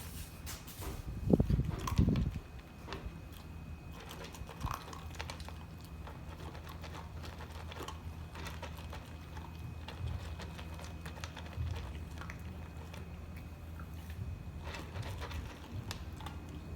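Pit bull puppy eating dry kibble: many small crunching clicks as it chews, with two louder thumps about a second and a half and two seconds in.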